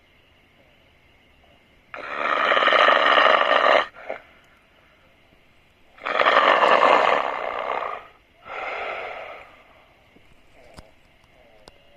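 A person snoring loudly: two long snores about four seconds apart, then a shorter, weaker one, followed by quiet breathing with a couple of small clicks near the end.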